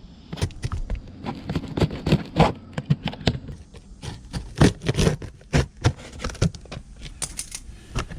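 Cardboard shipping box being opened and handled by hand: irregular scrapes and knocks of cardboard.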